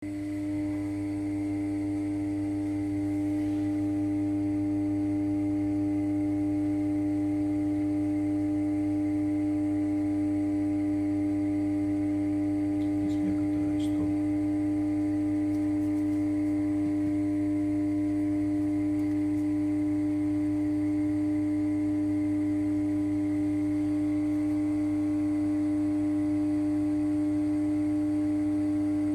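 Ariston oven humming: a steady, unwavering drone with one strong tone and a set of overtones above it, with a couple of faint ticks about halfway through.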